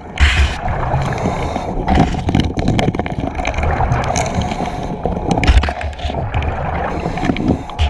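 Underwater sound at a commercial diver's Kirby Morgan helmet: steady gurgling and bubbling of air with several dull knocks as he works with his hands.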